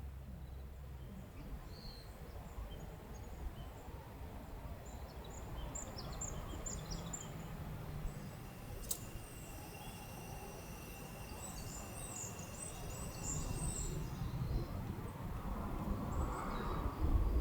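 Wind rumbling against the microphone, with small birds chirping faintly and high through the middle. A faint steady high tone is heard for a few seconds midway.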